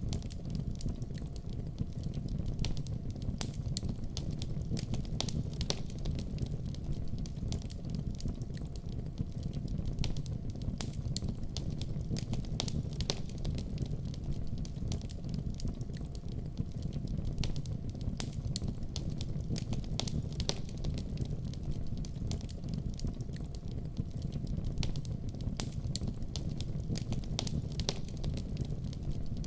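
Wood fire burning in a fireplace: a steady low rumble with frequent irregular crackles and pops.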